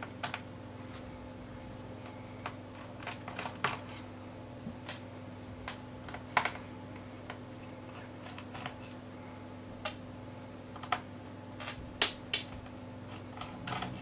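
Light, irregular clicks and ticks of a small screwdriver unscrewing the screws from a laptop's plastic bottom case, the bit and screws tapping against the plastic.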